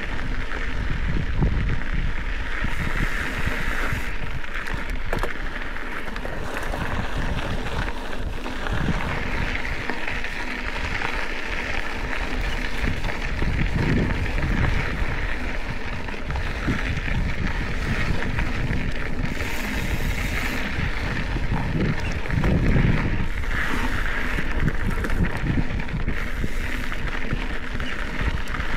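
A Specialized Epic 8 Evo mountain bike rolling over a dirt desert trail, its tyres hissing on the dirt and the bike knocking and rattling over bumps, with wind buffeting the microphone.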